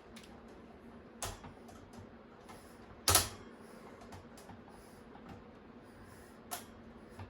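Sharp clicks and light knocks of fan parts being handled and fitted back onto a pedestal fan, the loudest click about three seconds in.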